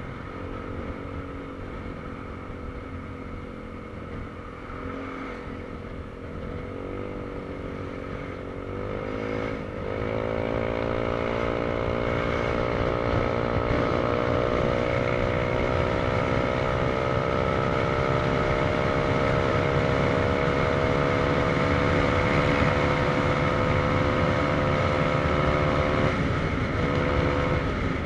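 Motorcycle engine running under way, with steady wind noise. Its pitch dips and rises a few times in the first ten seconds, then it gets louder and climbs slowly and steadily as the bike gains speed, with a short dip near the end.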